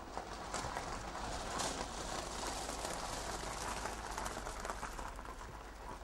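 A train running on rails, a dense rattle of wheels and carriages that swells and then eases off near the end, heard from a film soundtrack played back in a hall.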